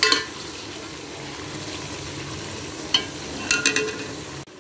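Whole small brinjals and green chillies sizzling as they fry in oil in a metal pot. A spoon stirs them, knocking against the pot right at the start and again a few times about three seconds in.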